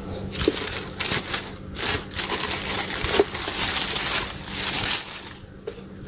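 Thin plastic bag crinkling and rustling in irregular handfuls as it is pulled open and off a boxed power tool.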